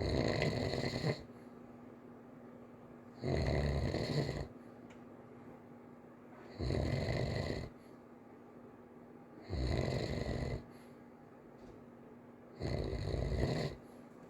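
Child snoring lightly and evenly, five snores about three seconds apart, each lasting about a second.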